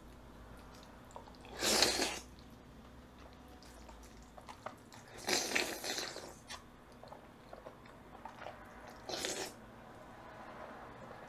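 A person slurping jjajangmyeon (black-bean-sauce noodles) three times: a loud slurp about two seconds in, a longer one around five to six seconds, and a shorter one near nine seconds, with soft chewing and mouth clicks between.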